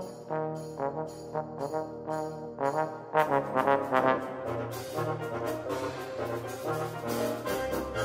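Wind ensemble with solo trombone playing a brass-heavy concert-band concerto. Short repeated chords sound about twice a second, then about three seconds in the full band comes in louder and denser, with low bass notes and percussion strikes.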